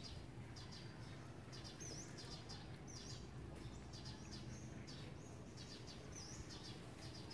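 Small birds chirping in quick repeated bursts, with an occasional short up-and-down note, over a faint steady low outdoor hum.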